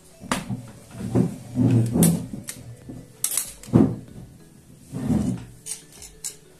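Dishes and utensils being handled: an irregular run of knocks, thuds and sharp clinks, about eight in all.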